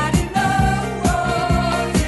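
Pop song playing: a singing voice over bass and a steady drum beat.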